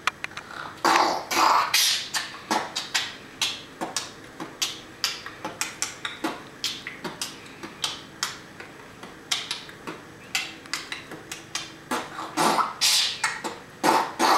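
A child beatboxing: a quick, rhythmic run of mouth-made kick, snare and hi-hat sounds, clicks and hisses several times a second. Near the end he cups his hands over his mouth and the strokes come louder.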